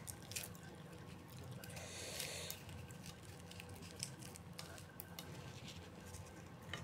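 Faint crackles and small clicks of a samosa's flaky pastry crust being broken apart by hand, with a brief rustle about two seconds in.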